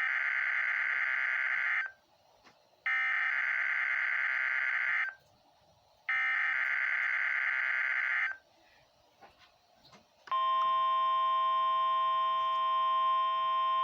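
NOAA Weather Radio Emergency Alert System test signal: three bursts of the SAME digital header, each about two seconds long with a second's pause between. About ten seconds in, the steady 1050 Hz warning alarm tone starts and holds, announcing the Required Weekly Test.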